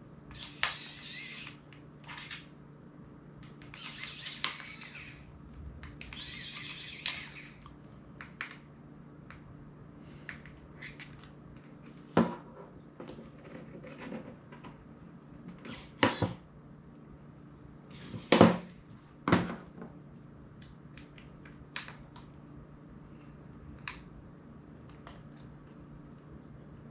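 A small Sony MP3 player being taken apart with a precision screwdriver and fingers: scraping and rasping in the first seven seconds or so, then scattered sharp clicks and snaps of the casing and small parts, the loudest about twelve, sixteen and eighteen to nineteen seconds in. A faint low hum runs steadily underneath.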